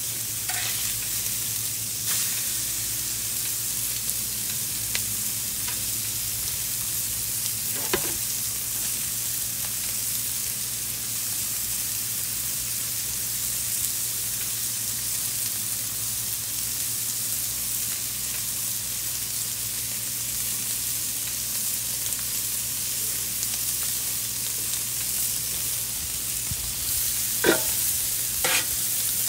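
Steaks sizzling on a hot Blackstone flat-top griddle, a steady hiss of frying. Near the end come a few short clinks and a brief louder stretch as more food goes onto the griddle.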